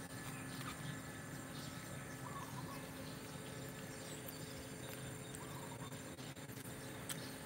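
Faint outdoor ambience of insects trilling steadily at a high pitch, with a short chirping call repeating every two to three seconds.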